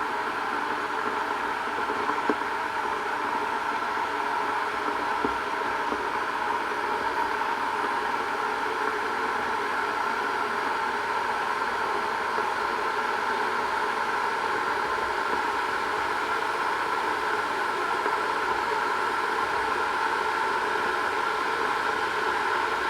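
Kettle heating water: a steady rushing hiss with a few faint ticks, growing slightly louder.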